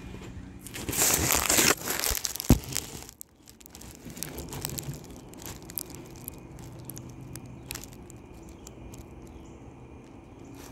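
Handling noise as a phone is set down in grass and dry leaves: a burst of rustling and crinkling for about two seconds, ending in a sharp knock as it settles. After that, only quiet outdoor background with a few faint clicks.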